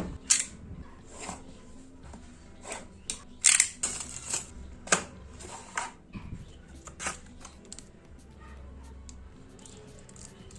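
Earbuds' cardboard box and packaging being opened and handled: irregular clicks, taps and rustles, a few sharper clicks between about three and six seconds in.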